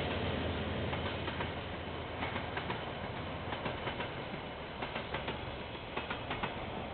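KiwiRail train rumbling past and fading away as its last wagons clear the bridge, with sharp clicks now and then from about a second in.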